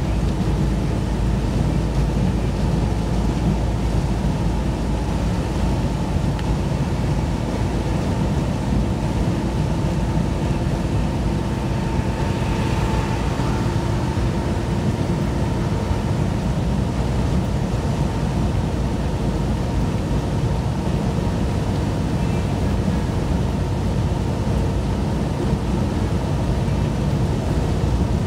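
Steady road and engine noise inside the cabin of a vehicle driving at highway speed: a constant low rumble with faint steady tones over it.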